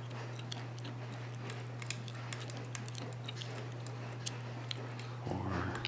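Lock pick working the pins of a Mul-T-Lock cylinder: irregular small metallic ticks and clicks as the pins are probed and set. A steady low hum runs underneath.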